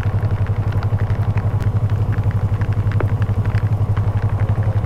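Yamaha R25's parallel-twin engine running at a steady speed, a low, evenly pulsing rumble with scattered light ticks over it.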